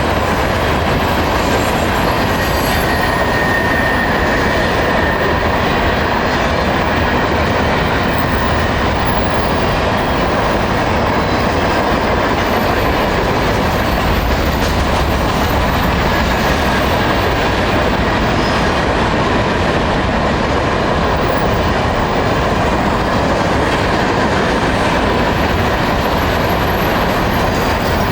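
Freight train cars rolling past at speed: a loud, steady rumble of steel wheels on rail, with faint thin wheel squeal now and then.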